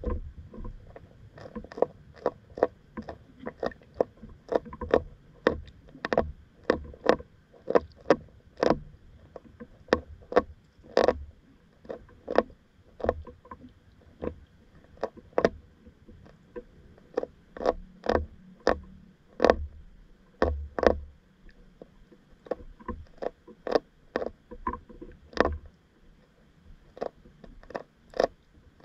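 Fish chewing cricket bait underwater: a long, irregular series of sharp crunching clicks, about one or two a second.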